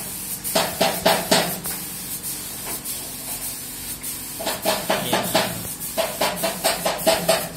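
Compressed-air paint spray gun hissing as it sprays the inside walls of a steel container booth during finishing. Runs of short rhythmic knocks come in about half a second in and again from about four and a half seconds in.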